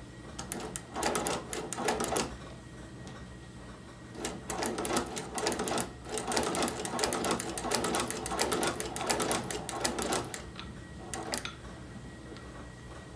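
Hand-cranked Chinese leather patcher sewing machine stitching leather, its needle and feed mechanism clattering in rapid clicks as the hand wheel turns. There is a short run about a second in, then a longer run from about four seconds to ten, and a last couple of clicks near the end.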